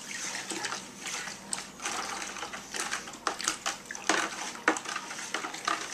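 A spoon stirring soapy water in a plastic 5-gallon bucket, with irregular clicks and scrapes against the bucket and sloshing liquid, as borax and washing soda are stirred in to dissolve.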